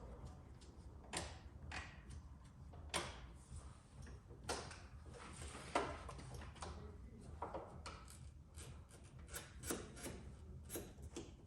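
Irregular light clicks and knocks from hand work fitting a motorcycle clutch cable, over a steady low hum.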